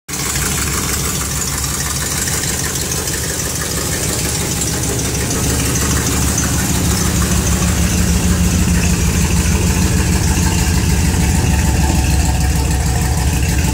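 A 1964 Chevrolet Impala's carbureted V8 running steadily at idle, on its first run after sitting unused for years. It grows slightly louder, with a heavier low rumble, about halfway through.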